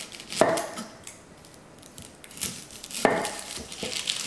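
Chef's knife cutting and peeling an onion on a wooden cutting board: two sharper knocks of the blade on the board, one near the start and one about three seconds later, with the light crackle of dry onion skin in between.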